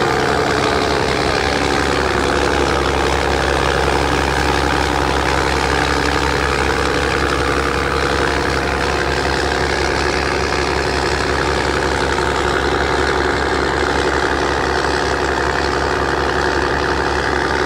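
Boat engine running steadily at speed, a constant low hum, under the rushing of the churned wake.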